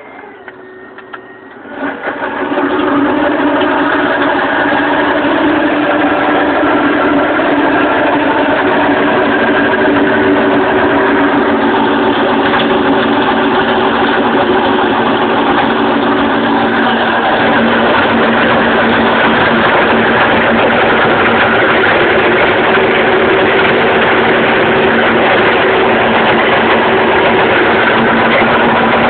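Renault Ares tractor's engine running steadily under load while driving a Howard rotavator through the soil, heard from inside the cab. It comes up loud about two seconds in, and its pitch dips slightly a little past the middle.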